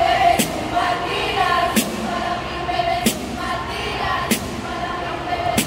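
A speaking choir of young voices chanting in unison, with a sharp percussive strike marking the beat five times, about every second and a quarter.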